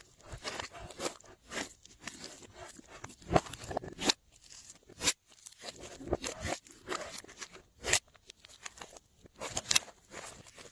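Glossy slime being worked by hand, giving irregular sticky clicks and crackles.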